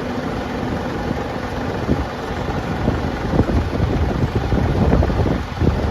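Steady rumble of running farm machinery, with gusts of wind buffeting the microphone.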